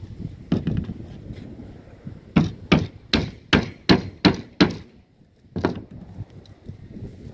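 Claw hammer driving nails into plywood slab-roof formwork: a single blow, then a quick run of seven blows at about two and a half a second, then one last blow.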